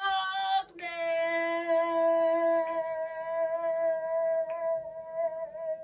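A voice humming: a short note, then a slightly lower note held steadily for about five seconds.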